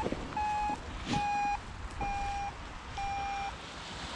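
Electronic beeping from a paragliding flight instrument such as a variometer: a row of short, even, mid-pitched beeps, about one a second, five in all.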